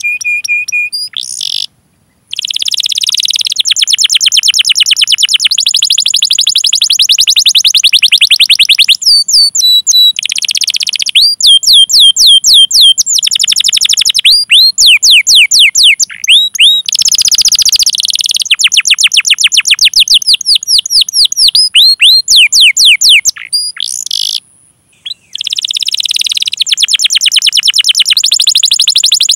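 Domestic canary singing: long, very fast rolling trills alternating with runs of separate swooping whistled 'cuit' notes, with two brief pauses.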